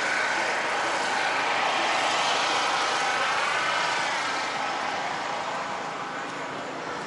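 Steady outdoor street noise, an even wash like traffic, with a faint distant voice about three seconds in.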